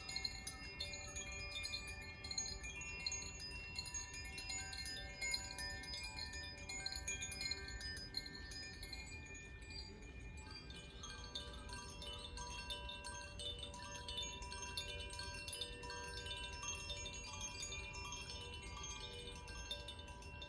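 Handheld Koshi and Zaphir wind chimes, rods struck in a continuous shimmer of overlapping ringing tones. About ten seconds in, the set of pitches changes, with lower tones coming in. A faint low rumble runs underneath.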